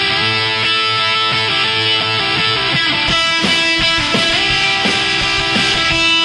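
Background music led by guitar, with held notes and then rhythmic strumming from about halfway through.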